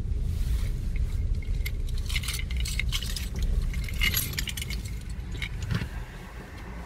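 A bunch of keys jangling in quick clinks, mostly between about two and four and a half seconds in, over a steady low rumble.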